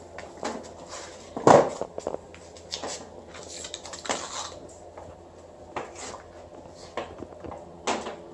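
Handling noise as an angle grinder and its power cord are moved about: scattered knocks and light metallic clatter, the loudest knock about a second and a half in and another near the end. The grinder is not running.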